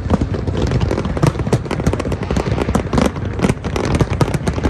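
Fireworks going off in quick, irregular succession: many sharp bangs and crackles overlapping with no break.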